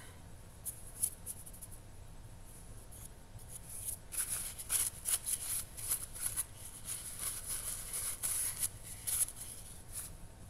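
A cloth rubbed back and forth along a steel knife blade, wiping off baking soda paste after rust scrubbing: quiet at first with a few light ticks, then a quick run of short, irregular swishing rubs from about four seconds in.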